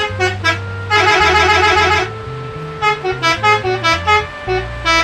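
A multi-tone musical bus horn tooting a tune in short notes, with a fast warbling run about a second in, over background music with a bass line.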